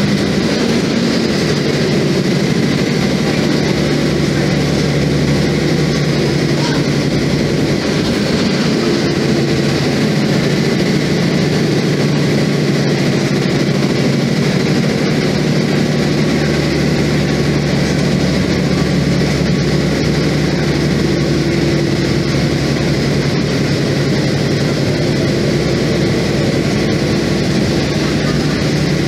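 Mercedes-Benz OF-1724 bus's diesel engine running steadily under way, heard from inside the cabin along with road and body noise: a steady low drone whose pitch shifts slightly.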